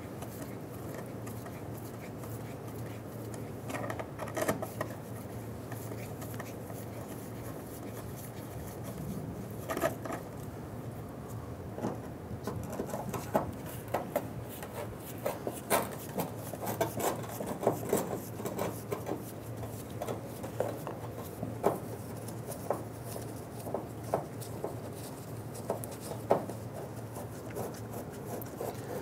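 Small ratchet clicking in short bursts, with metal tool clicks and clinks, as T25 Torx screws are backed out of the fuel filler neck housing, over a steady low hum.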